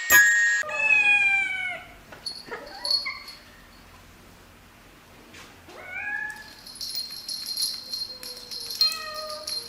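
A cat meowing about four times, the first meow long and falling in pitch.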